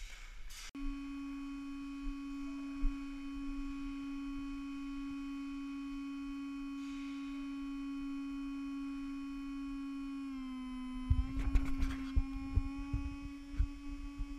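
A long, steady, buzzy signal siren tone that starts abruptly about a second in, holds one pitch, dips slightly near the ten-second mark, and slides down in pitch as it stops at the end. A cluster of sharp clicks and knocks sounds under it a little after the dip.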